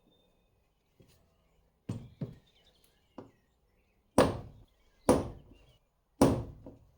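Hammer striking steel stamping dies to punch the weight into a cast lead pyramid sinker: a few light taps, then three hard blows about a second apart.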